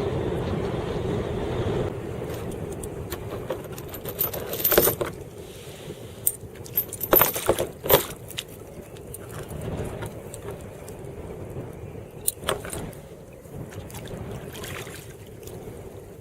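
Wind buffeting the microphone from a kayak in heavy wind, strongest in the first two seconds, with a few sharp clicks and rattles of handled gear about five seconds in, a cluster around seven to eight seconds, and once more near twelve seconds.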